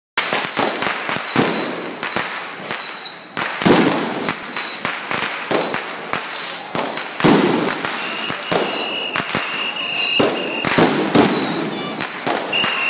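Fireworks and firecrackers going off: rapid crackling with louder bangs every second or two, and a high steady whistle-like tone at times.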